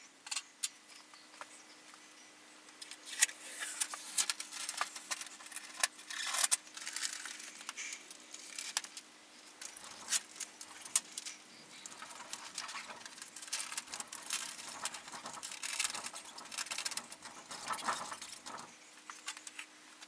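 Crinkling and rustling of a clear plastic transfer-tape sheet being handled and smoothed onto a corrugated steel garage door, in irregular crackly bursts with scattered clicks and taps, starting about three seconds in. A faint steady hum runs underneath.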